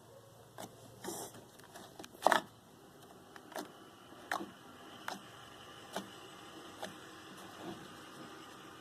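Sticky clay-and-slime mix being kneaded by hand, giving short pops and clicks about once a second. The loudest pop comes a little over two seconds in.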